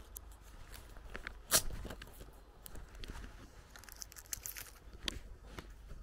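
Footsteps crunching on a dry dirt path, a series of scattered crunches and clicks, with one louder crack about a second and a half in.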